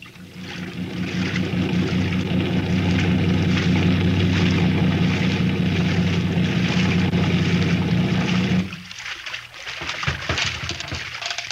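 Sound effect of a motorboat engine running steadily over splashing water. It fades up over the first couple of seconds and cuts off abruptly about three-quarters of the way through, as the boat comes in to land, leaving only water splashing and sloshing.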